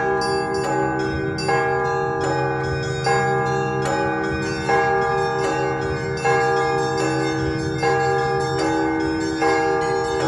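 Russian Orthodox church bells in festive ringing (prazdnichny zvon): small bells chime in a fast, even pattern over mid-sized bells struck about once a second, with the deep hum of a large bell underneath.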